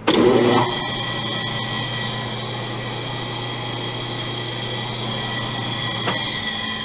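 Homemade self-starting three-phase rotary phase converter switched on: its idler motor starts with a loud surge and a whine that rises over the first half second, then runs with a steady electric hum and high whine. A brief click about six seconds in.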